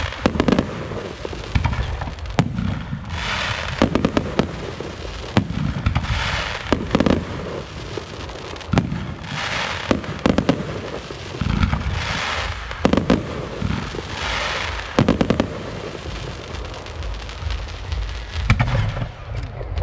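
Aerial fireworks show: shells bursting with sharp bangs one after another, with stretches of crackling and hissing between the bangs.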